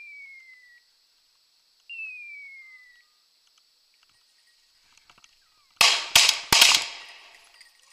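Two falling electronic beeps from a setter's beeper collar, the signal that the dog is on point. About six seconds in come three shotgun shots in quick succession.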